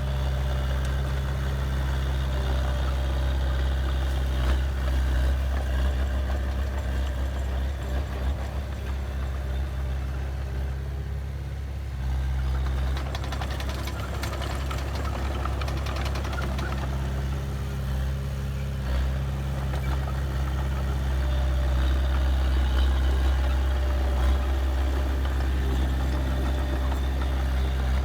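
Heavy diesel engine of earthmoving machinery running steadily, its note changing briefly around twelve seconds in.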